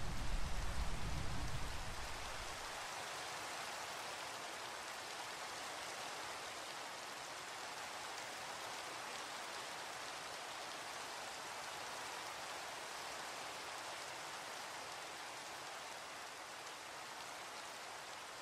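Steady heavy rain. A low rumble of thunder dies away in the first couple of seconds, and the rain eases slightly toward the end.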